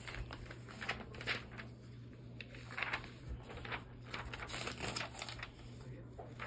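Light clicks and rustles of small plastic items being handled and moved about, in irregular short strokes over a faint steady hum.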